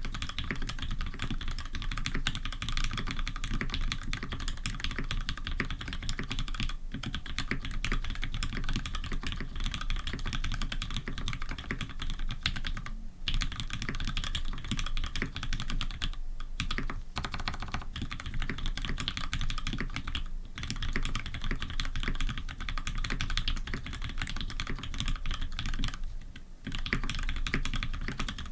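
Continuous fast typing on a Tx87v1 custom mechanical keyboard with Cherry Retooled Black linear switches (filmed, lubed with Krytox 105, 65 g springs), a brass plate and GMK keycaps: dense key clacks broken by a few short pauses.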